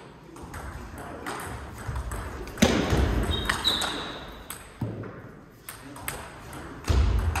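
Celluloid-type table tennis ball clicking sharply off the paddles and the table during rallies, with voices in the hall. A louder burst comes about two and a half seconds in, and another near the end.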